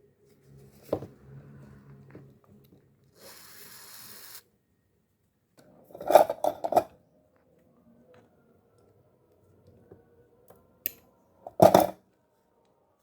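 Small metal fishing-reel parts and tools clinking and clattering on a hard surface during disassembly: a quick run of clinks about six seconds in and two more near the end, with a short hiss about three seconds in.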